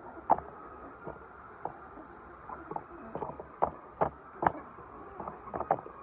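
Irregular sharp taps and clicks, about a dozen in six seconds, over a steady faint hum in a poultry shed full of chickens.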